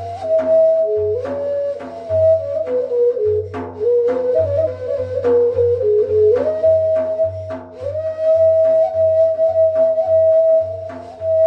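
Ney (Turkish end-blown reed flute) playing a slow ilahi melody in makam Nihavend. The melody steps down and back up, then holds a long note, over a steady drum beat and a low bass.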